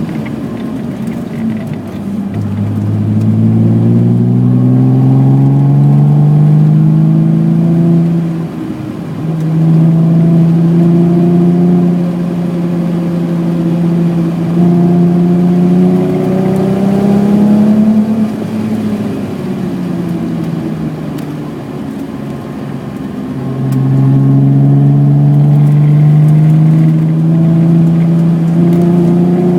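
BMW E28 with a 3.6-litre engine pulling hard under full throttle, revs climbing, with a quick gear change about eight seconds in. Around the middle it eases off, revs and level falling, then it pulls hard again near the end.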